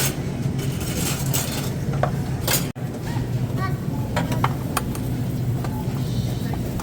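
A steady low hum with scattered light clinks and knocks, as of goods and a cart being handled, cut off for an instant just under three seconds in.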